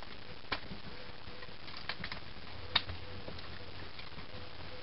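A few light, separate clicks and taps from a Tanaka Colt Single Action Army airsoft revolver being twirled around a finger, with one sharper click a little past the middle, over a steady hiss.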